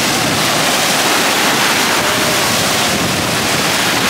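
Steady, loud rush of ocean surf and wind.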